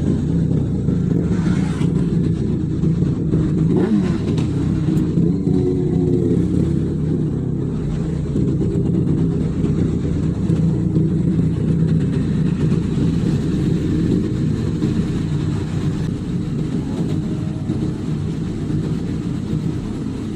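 Motorcycle engine running steadily while riding, with a continuous low rumble of wind on the microphone.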